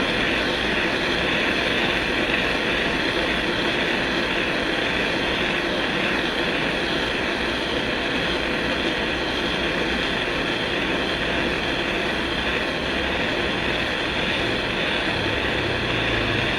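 Jeweler's soldering torch flame hissing steadily, held on a soldered joint to melt the solder and free a ring band from a bezel plate.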